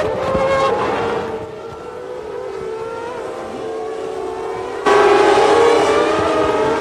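1995-era Formula One cars' engines running at high revs, their high-pitched whine gliding up and down. About five seconds in it jumps suddenly louder and stays so.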